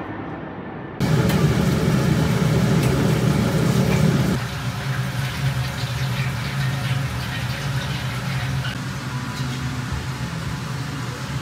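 Restaurant kitchen noise: a steady low mechanical hum, such as a range hood or ventilation fan. It comes in suddenly and loud with a low rushing about a second in, drops to a quieter hum at about four seconds, and has light clinks of cookware over it.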